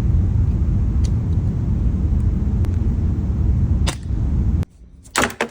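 Loud low rumble that cuts off suddenly about four and a half seconds in, with a few faint clicks during it. Near the end come two sharp cracks of an airsoft gun firing.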